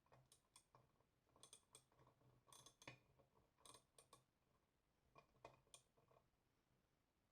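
Faint, irregular small clicks and taps of metal parts being handled as an old Sievert blowtorch is reassembled.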